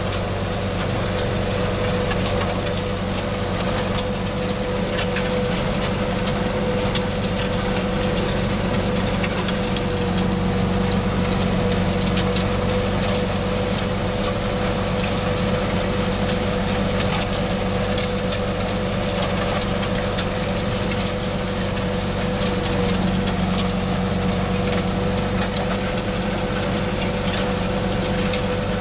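Tractor engine running steadily while driving, heard from inside the cab: a constant low hum with a steady higher whine on top.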